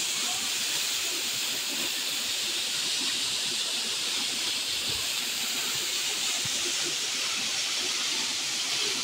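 Gostilje waterfall: water pouring down a mossy rock face and splashing into its pool, a steady even rush.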